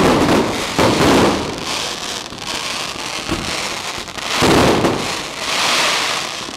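Fireworks barrage: many bursts and pops running together into continuous dense crackling, swelling loudest about a second in and again in the second half.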